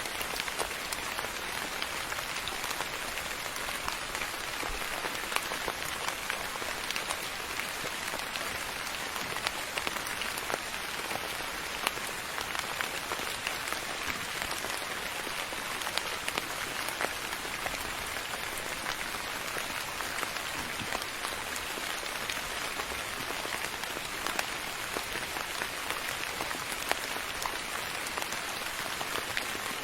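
Steady soft rain falling, an even hiss with many small drops pattering and ticking on a surface.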